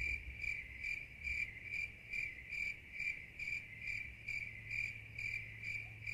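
Cricket chirping sound effect, an even run of high chirps about four a second, laid in as the comic cue for an awkward silence.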